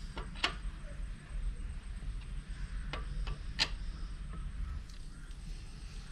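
About five sharp clicks and taps of tools or metal parts being handled during a motorcycle oil change: two near the half second, three in quick succession around three and a half seconds. A steady low rumble runs underneath.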